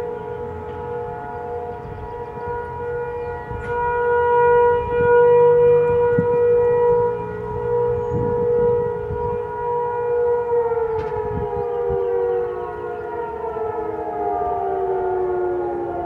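Federal Signal 500 civil defense tornado siren sounding its test with a steady wail, its loudness swelling and easing. About ten seconds in it begins to wind down, its pitch falling slowly.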